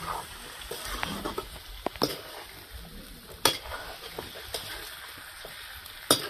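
Chicken pieces and onions sizzling in hot oil in a steel kadhai while being stirred with a metal spatula, which scrapes and knocks against the pan a few times.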